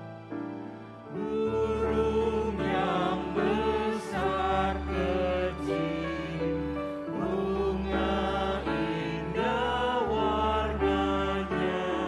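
Grand piano playing the end of an interlude, then about a second in a small group of voices begins singing an Indonesian hymn to the piano accompaniment.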